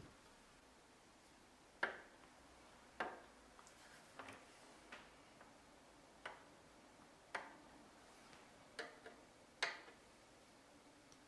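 Scattered short, sharp clicks and light knocks, about eight of them at irregular intervals over a quiet room background, like small tools and parts handled during hands-on work on the amplifier.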